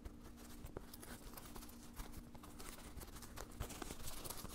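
Faint rustling and light irregular taps of cloth and armor pad being handled as a pad is pushed into a pocket of armored denim riding pants, over a steady low hum.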